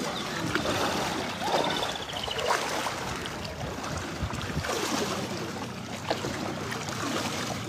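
Boat moving slowly through floodwater: a steady wash of water noise with wind on the microphone, and faint voices in the distance.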